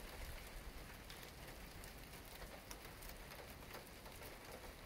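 Faint steady rain falling, with scattered individual drops ticking now and then.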